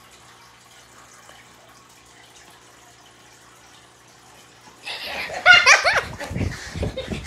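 Quiet for about five seconds, then water splashing onto a sleeping person, followed at once by a startled high-pitched cry and laughter.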